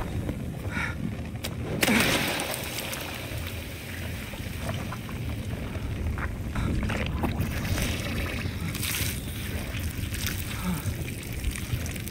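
Dragon sound design: a steady deep rumble with a sudden loud hissing exhale about two seconds in and a fainter hiss later, the breathing of a dragon close by.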